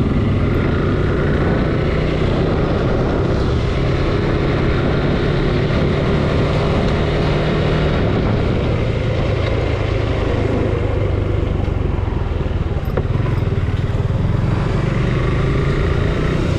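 Suzuki Gixxer 155 single-cylinder motorcycle engine running steadily while being ridden.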